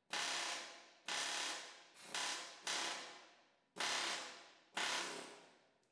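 Pneumatic air chisel hammering rivet heads off a steel cab-mount bracket on a truck frame, in six short bursts about a second apart, each dying away quickly.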